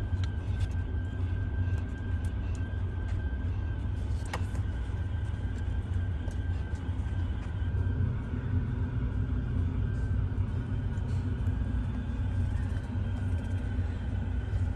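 Steady low rumble with a faint steady high tone above it and a few light clicks.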